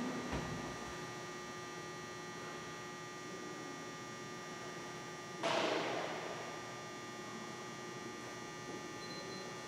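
Steady electrical hum made of several fixed tones, with one short burst of noise about five and a half seconds in.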